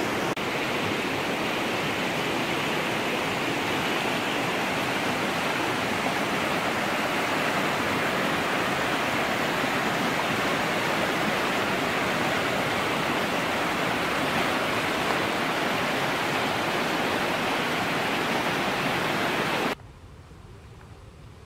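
Fast, turbulent milky mountain river rushing below a footbridge: a loud, steady wash of water noise. It cuts off suddenly near the end, leaving a much quieter background.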